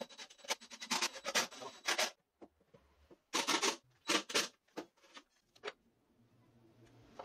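A hand screwdriver being worked, and screws handled, in bursts of quick clicks and rattles. Near the end comes a softer, steady scratching as a pencil marks the plywood.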